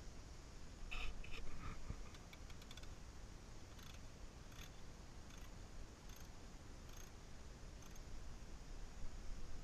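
Small ratchet wrench clicking faintly in short bursts, about one a second, as it loosens a hose clamp on a transmission cooler line.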